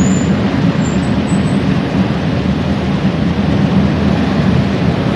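Heavy eight-wheeled military missile-launcher trucks driving past: a steady low engine rumble with a rushing noise over it.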